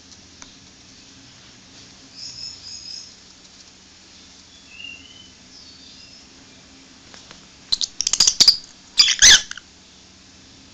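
Lutino rosy-faced lovebird giving a few soft, short high chirps. About eight and nine seconds in come two loud bouts of crackling, scratchy noise.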